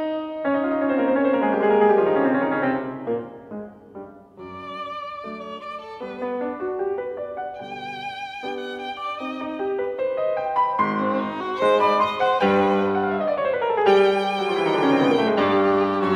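Instrumental background music: a slow melody of held notes with vibrato over sustained chords.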